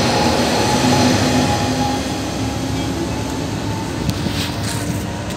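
Amtrak Cascades Talgo passenger train running past along the platform. Its rushing rail noise slowly fades as the last cars go by and the train moves away.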